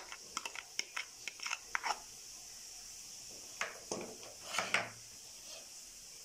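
Metal spoon scraping thick curd out of a plastic container into a steel bowl: a quick run of scrapes and clicks for the first couple of seconds, then a few more spoon knocks and scrapes against the bowl about four seconds in, over a steady high hiss.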